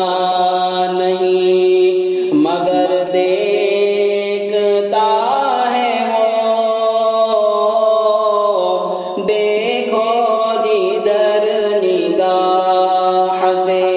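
A man singing a hamd (an Islamic devotional hymn in praise of God) without instruments, drawing out long held notes that slide between pitches.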